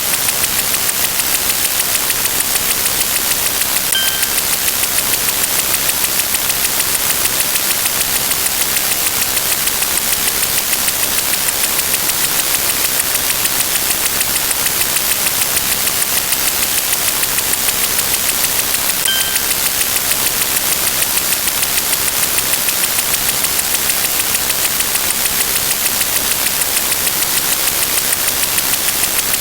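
Loud, steady hiss of white noise with a fast, even flutter, broken twice by a short high beep: about four seconds in and again about fifteen seconds later.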